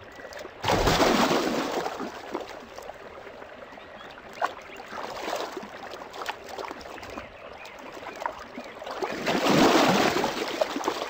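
Water splashing and sloshing as two adult Nile crocodiles fight in shallow river water, with a heavy surge of splashing about half a second in and another near the end.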